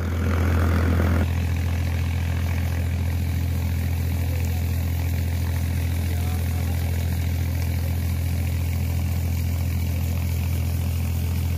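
Engine running steadily with a low, even hum, driving the alternator that powers the borewell pump. A brief louder rushing noise sits over the first second or so.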